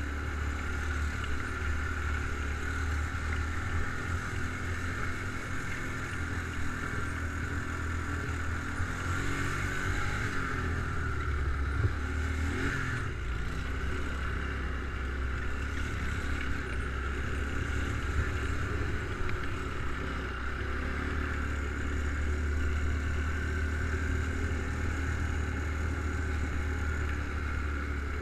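ATV engine running at a fairly steady pace while riding, a constant low rumble with only small rises and falls.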